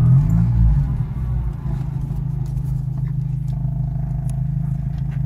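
A 1980 Mitsubishi Colt A150's four-cylinder engine heard from inside the cabin during a test of its acceleration. The engine note drops about half a second in, as at a gear change, then runs steadily, with a few light clicks and rattles.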